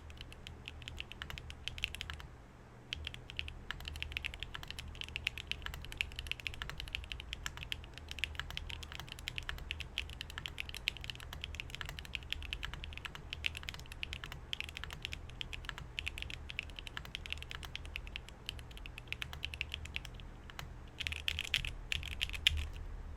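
Typing on a Neo 80 mechanical keyboard with Kailh BCP switches, GMK Mictlan keycaps and an aluminium plate: a quick, continuous run of keystrokes, pausing briefly about three seconds in and growing louder and faster near the end.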